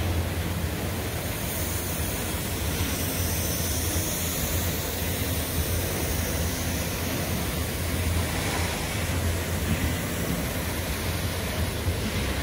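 Freight train of grain hopper wagons rolling past, a steady rumbling rush of wheels on rail with no distinct clanks or horn.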